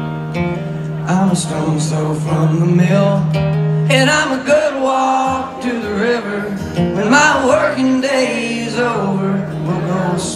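Live country music: an acoustic guitar played with male singing, heard at a loud level over a concert PA.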